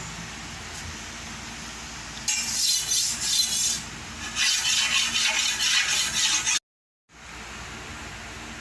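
A bolo machete's steel blade being sharpened: two bouts of quick, rasping scraping strokes against the sharpener, the second longer than the first.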